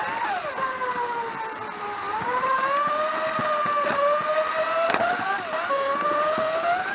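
Electric motor of a 1/24-scale slot car whining as it runs on a Carrera track. The pitch falls and climbs again with the car's speed, with two sharp clicks in the second half.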